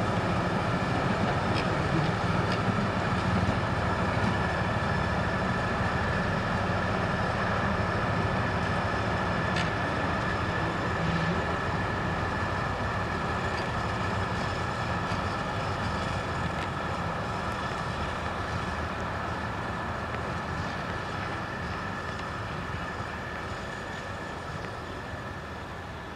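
DR1A diesel multiple unit running past and pulling away: its diesel engines and wheels on the rails, with a steady high whine. The sound fades steadily as the train recedes.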